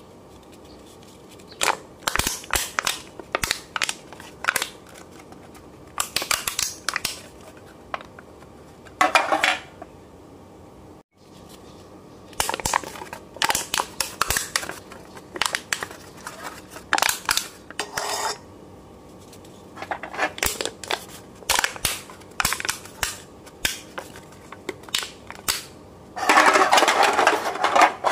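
Aluminium beer cans being squeezed and crushed by hand: the thin metal crinkles and pops in short, irregular bursts with pauses between. Near the end comes a longer, louder stretch of crinkling.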